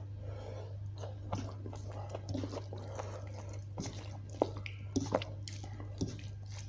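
Close-miked chewing and biting of a mouthful of spicy beef curry with rice, with irregular clicks and smacks, over a steady low hum.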